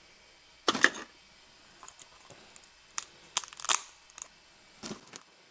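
Brittle PLA support material cracking and snapping as it is pulled by hand off a flexible TPU-printed shoe. A loud cluster of cracks comes about a second in, then several sharper single snaps and small clicks.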